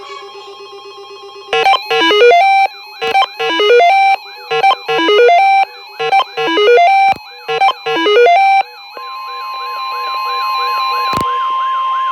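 An electronic melody of short square-wave notes plays over a faint warbling background tune. About nine seconds in it gives way to a single steady high tone, the NOAA Weather Radio 1050 Hz warning alarm tone that comes before a warning is read.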